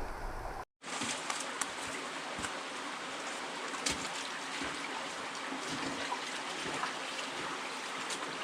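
Water of a river crossing flowing steadily, a continuous rushing trickle with small splashes and ticks. The sound cuts out completely for a moment under a second in.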